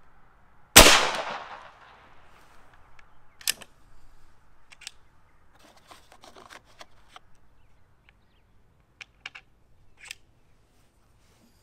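A single shot from a .50 caliber Seneca Dragon Claw PCP air rifle about a second in, its loud report dying away over about a second. Then scattered clicks and clacks as the next round is taken from the box and the rifle is reloaded.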